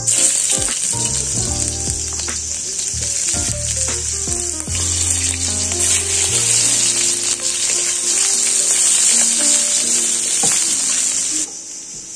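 Food sizzling in hot oil in a cooking pan, a steady loud frying hiss that cuts off suddenly near the end.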